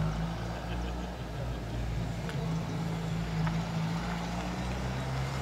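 Car engine running with a steady low hum.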